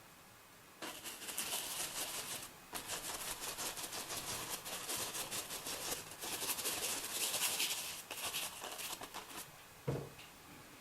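Paintbrush scrubbing and dabbing paint onto the painting board in quick, scratchy strokes, in two spells with a short break about two seconds in, followed by a single knock near the end.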